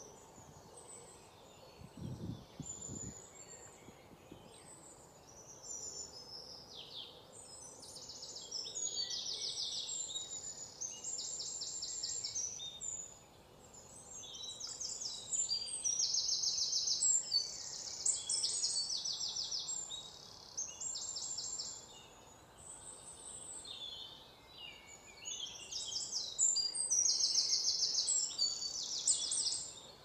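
Forest birds calling: high chirps and slides with repeated fast trills about a second long, several voices overlapping, louder in the second half.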